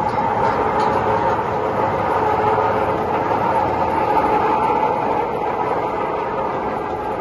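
Waste tyre recycling machinery running steadily: a loud, continuous grinding noise with a steady hum.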